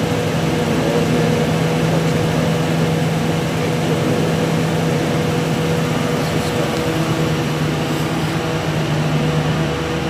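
500 kVA Cummins diesel generator set running, a loud steady engine drone with a constant low hum and a higher steady tone over it.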